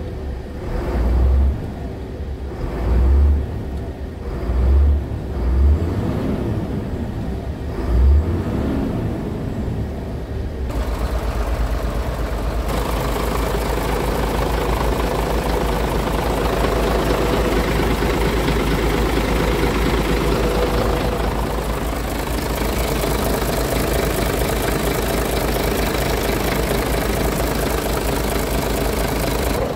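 Scania P-series truck's diesel engine idling, with a few short low surges in the first ten seconds. From about eleven seconds in it turns louder and steadier, with more hiss.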